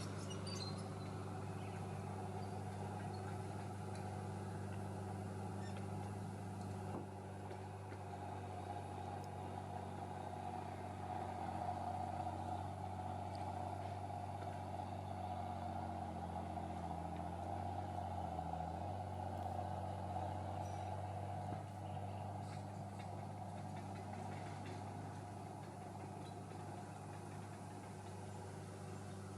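Diesel engine of a Cat Drott track loader running steadily, its pitch dipping briefly about seventeen seconds in before settling back.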